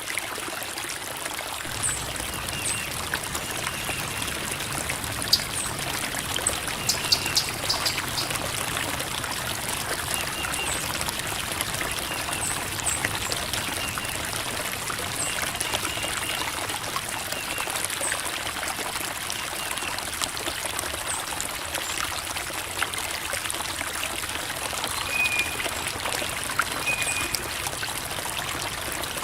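Small creek flowing steadily, water trickling and babbling over rocks, with scattered short high-pitched plinks and ticks over the steady rush.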